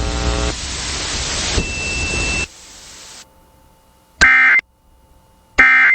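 Emergency Alert System end-of-message signal: static hiss, then two short, identical warbling digital bursts about a second and a half apart, the data tones that close an EAS alert.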